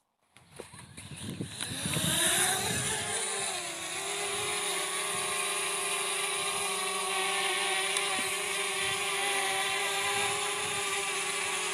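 DJI Mavic Mini's propeller motors spinning up from rest: a whine that rises in pitch and loudness over the first two seconds or so, then holds steady as the drone lifts off and hovers.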